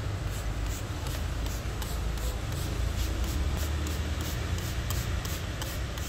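Hand-pumped trigger spray bottle misting a young parakeet with quick, evenly spaced squirts, about three a second, over a steady low rumble.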